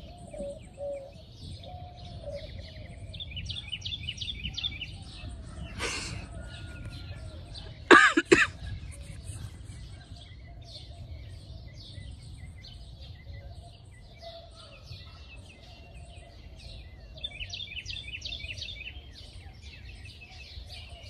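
Many small birds chirping and calling over a low steady rumble, with one short loud burst about eight seconds in.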